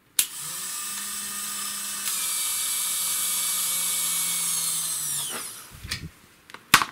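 Small electric servo motor inside an aircraft angle-of-attack indicator whining steadily after a click as power is applied. It gets louder about two seconds in, then winds down and stops after about five seconds, and two sharp clicks follow near the end. The motor fails to stop as it should and drives the mechanism until it is stuck.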